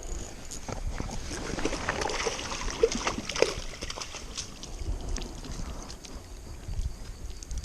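Water sloshing and splashing around a kayak, with scattered light knocks and clicks.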